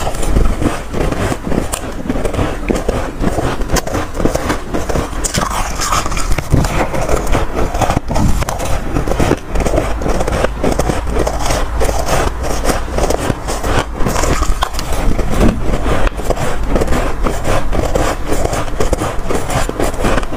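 Loud, dense crunching as mouthfuls of soft, powdery freezer-frost ice are bitten and chewed, a rapid crackle of many small bites with no pause.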